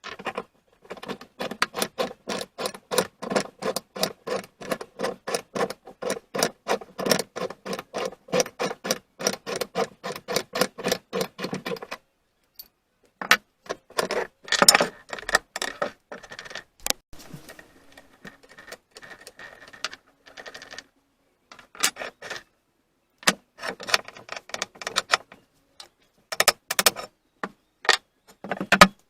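A fast, even series of metallic strikes on the bar clamp's parts, about three or four a second, each with a brief ring, for roughly ten seconds. Then scattered metal clinks and knocks as the parts are handled.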